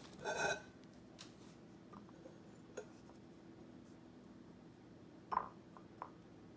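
Faint knocks and clicks of an opened metal can of beans being handled and tipped over a ceramic bowl. A short ringing clink comes at the start and a small sharp knock about five seconds in.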